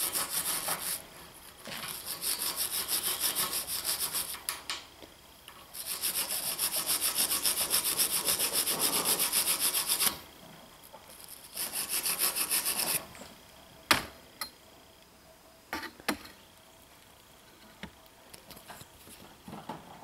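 Hand wire brush scrubbing a copper battery-cable lug in several runs of fast back-and-forth strokes, cleaning off the oxidation left by torch heating during soldering. The brushing stops about two-thirds of the way through, leaving only a few clicks and knocks as the lug is handled.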